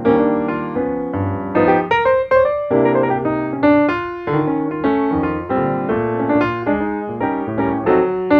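Jazz piano music: struck chords in a steady rhythm over low bass notes.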